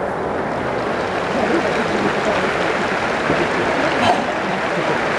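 Large stadium crowd of football supporters chanting and cheering together, a steady dense mass of voices.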